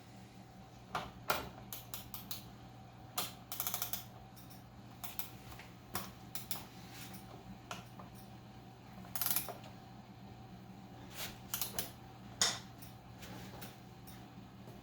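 Ratcheting torque wrench tightening a reverse-threaded bicycle crank bolt: short runs of quick ratchet clicks and scattered single clicks as the handle is worked back and forth, over a faint steady hum.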